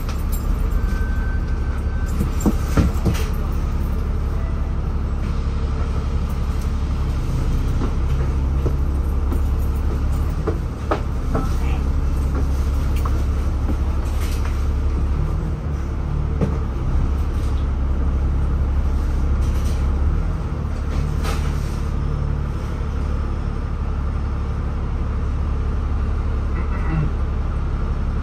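Inside a moving city bus: steady low engine and road rumble, the engine note shifting up and down as the bus speeds up and slows, with occasional short clicks and rattles from the cabin.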